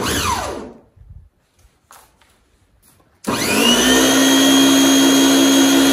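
Small electric pressure washer's motor and pump winding down with a falling whine, then near quiet for about two seconds. About three seconds in, the trigger is pulled and the built-in auto start/stop switches the motor on: it starts abruptly and runs with a steady whine over the hiss of the water spray.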